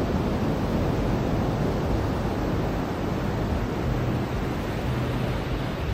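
Ocean surf washing steadily on a beach, a continuous even rush with no separate breakers standing out. A faint low hum comes in about four seconds in and fades near the end.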